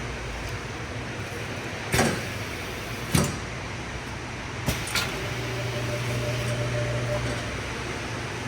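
Semi-automatic heat-shrink packaging machine running with a steady hum. It gives four sharp knocks, two close together near the middle, and then the hum swells for a couple of seconds with a faint steady whine.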